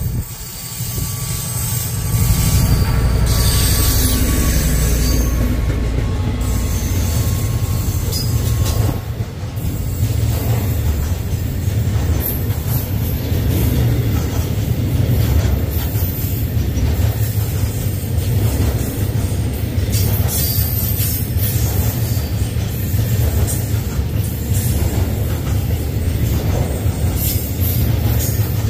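SRT CDA5B1 diesel-electric locomotive passing close by a couple of seconds in, then a long string of LPG tank wagons rolling past, a steady low rumble of wheels on rail with high-pitched wheel squeal at times.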